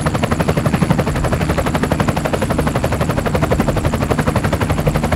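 Helicopter-rotor chopping sound for a toy helicopter being flown by hand: a rapid, even stream of thuds, about fifteen a second, that keeps up without a break.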